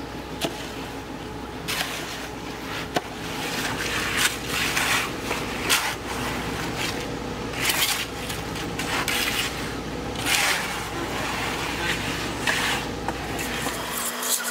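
Shovels and a hoe scraping and dragging through wet concrete as it is spread in a wooden form, in repeated irregular strokes, over the steady hum of an engine running.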